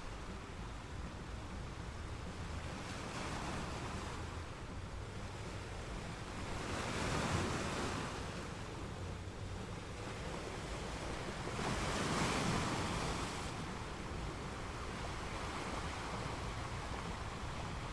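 Ocean waves on a beach: a steady low rumble of surf with two larger waves swelling up and washing in, about seven and twelve seconds in.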